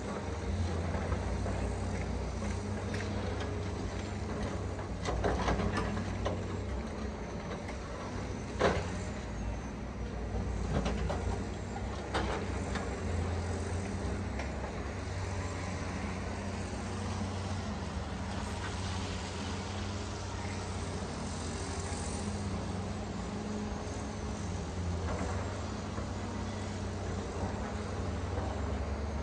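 Diesel engine of a Cat hydraulic excavator running steadily under load, with a few sharp knocks of broken concrete as its MDE Scorpion S1600 grab digs into and handles the rubble. The loudest knock comes about nine seconds in.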